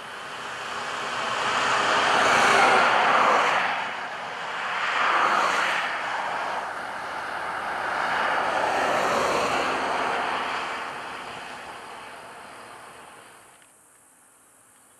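Highway traffic: three vehicles pass one after another, each swelling and then fading away. The noise drops off suddenly near the end.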